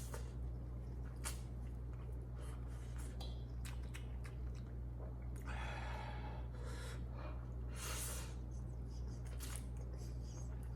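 Close-miked chewing of spicy instant noodles: wet mouth clicks and smacks, with a few longer noisy slurps or breaths, the loudest about six seconds in, over a steady low hum.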